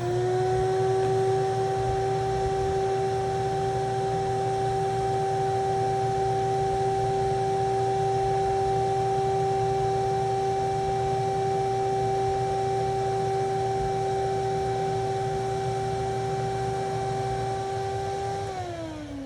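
Shop vac with its air filter taken out, running steadily with an even whine while sucking water out of a sewage basin. Near the end its pitch falls as it stops sucking, a sign the tank is full.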